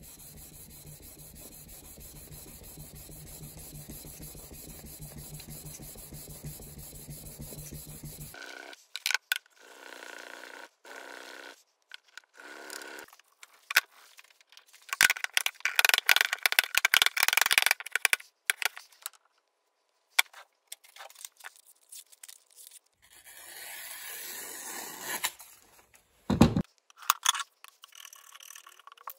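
Hand-tool work on a bench: a small flat piece rubbed steadily back and forth on a flat abrasive plate for about eight seconds, then bursts of rough scraping on a long abrasive plate, loudest in the middle. A single sharp knock comes a few seconds from the end, followed by short chisel cuts in wood.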